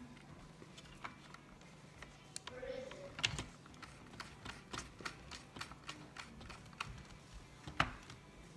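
Small hand screwdriver driving a screw into a robot vacuum's plastic chassis: a run of light, irregular clicks and ticks, louder about three seconds in and again near the end.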